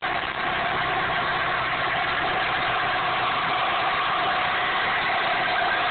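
1998 Dodge Neon's 2.0L DOHC four-cylinder engine running at a steady speed, with a steady high whine over the engine noise. The owner suspects the water pump is causing the whine.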